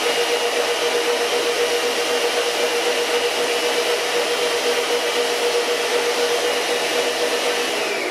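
Electric stand mixer running at a steady speed, beating butter to a creamy, fluffy consistency: a constant motor whine with a high tone above it. Right at the end the motor starts to wind down as it is switched off.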